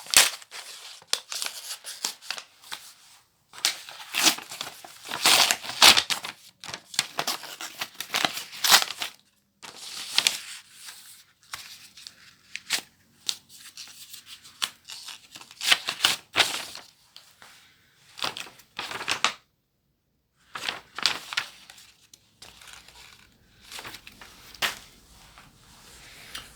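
Paper packaging of a book parcel being torn open and crinkled by hand, with scissors snipping at it, in irregular rustling bursts with short pauses.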